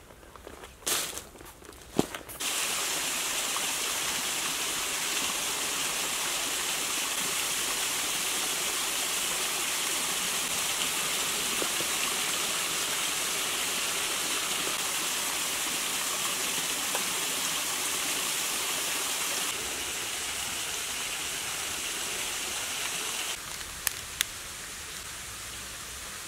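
Steady rushing of a small woodland waterfall, which sets in sharply a couple of seconds in and drops away near the end. Before it come a few footsteps on a leafy path, and after it a couple of sharp clicks.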